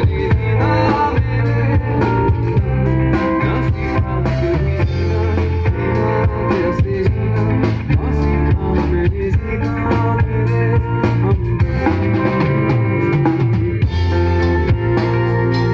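Live band playing instrumental music through a large PA: electric guitars, bass and keyboard over a drum kit keeping a steady beat.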